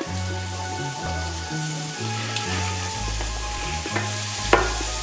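Sliced onions and grated carrot sizzling in oil in a stainless steel frying pan as the carrot is tipped in, with a few short clacks, the loudest about four and a half seconds in. Background music with a low bass line plays underneath.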